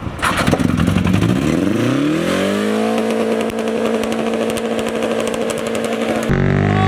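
Mazda Miata's four-cylinder engine revving up, its pitch rising over about two seconds and then held at high revs. Near the end the sound cuts abruptly to a different engine note.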